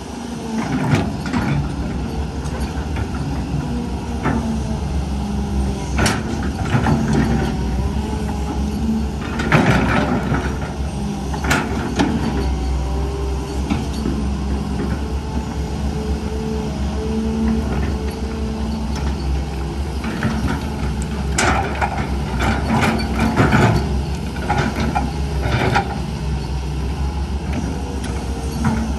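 Hydraulic excavator's diesel engine running steadily under load, with scattered sharp clanks and knocks from the bucket and rock as it works.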